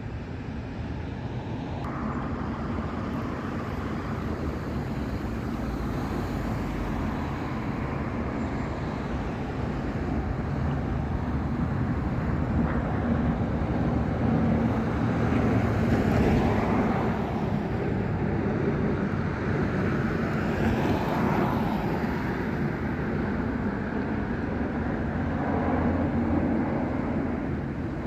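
Road traffic on a nearby multi-lane road: a steady rumble of engines and tyres, with several cars passing close by, each swelling and fading, the loudest about halfway through.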